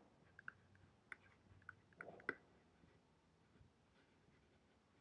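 Near silence, with a few faint, short clicks and taps of a stylus writing by hand, in the first half.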